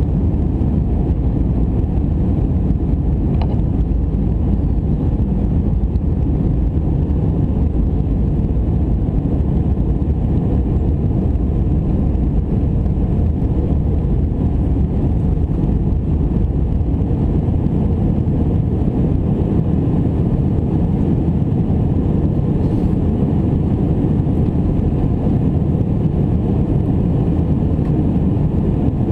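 Airbus A319 cabin noise in flight: a steady low rumble of the jet engines and the air rushing past the fuselage, even throughout.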